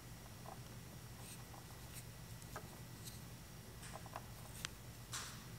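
Faint, scattered small ticks and rustles of fingers twisting the stripped ends of thin servo wires, over a low steady hum.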